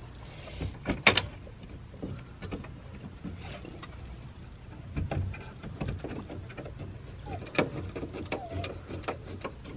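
Small metallic clicks and ticks, scattered irregularly: a big nut and flat washer being threaded by hand onto a bolt through a steel harness-bar bracket.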